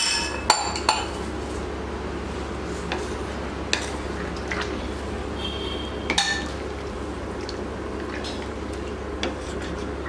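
A wooden spatula stirs watery rice and stock in a large steel pot, with scraping and knocks against the pot's sides. A couple of sharp metallic clinks come near the start, over a steady low hum.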